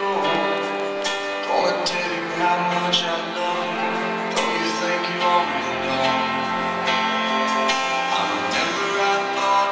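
Music: a song with singing and guitar.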